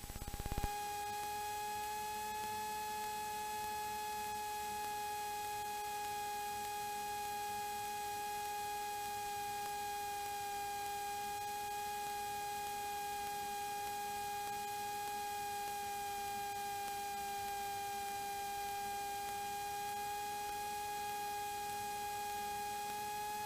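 A steady pitched hum with evenly spaced overtones starts abruptly after a click about half a second in, its pitch wavering slightly.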